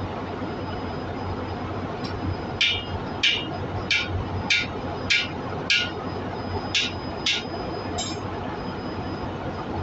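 Hand hammer striking a steel seat-driving tool, about eight sharp metallic blows roughly every 0.6 s with a brief pause midway: the new exhaust valve seat is being driven into its bore in the cylinder head.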